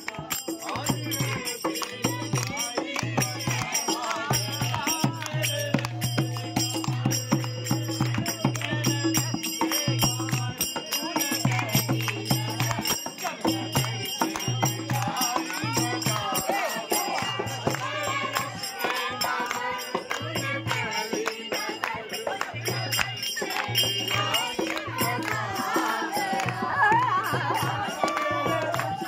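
Lively folk music: a dholak drum and small brass hand cymbals (manjira) keep a fast, jangling rhythm, with hand clapping and voices over it.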